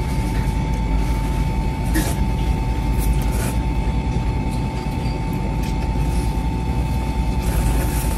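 Steady low background rumble with a constant thin hum, and a few short slurps as instant noodles are sucked up from chopsticks.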